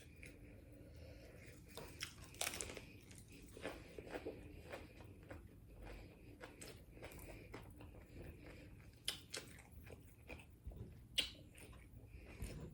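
Close-up chewing and biting of a taco, quiet and wet, with scattered crunches and mouth clicks.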